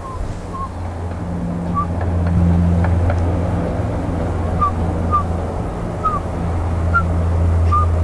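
A Eurasian bullfinch gives soft, short, low whistled calls, about eight of them, spaced irregularly, over a steady low hum.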